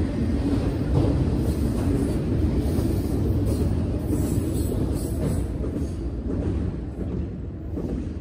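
Freight train of autorack cars rolling past: a steady rumble and clatter of steel wheels on rail, with occasional sharper clicks, easing off near the end as the last cars go by.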